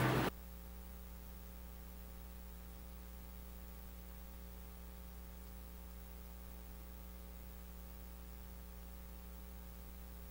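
Steady electrical mains hum with a faint hiss in the audio feed, left after the louder sound cuts off suddenly at the very start.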